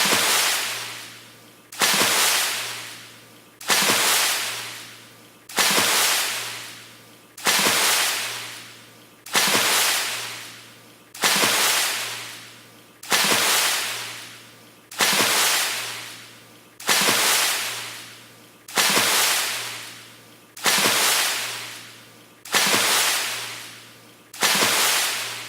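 A fast water splash, the same splash repeated at an even pace of about one every two seconds, each starting suddenly and fading away.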